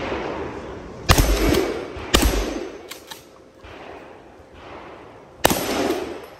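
Three gunshots: two about a second apart, then a third about three seconds later, each followed by a brief echo.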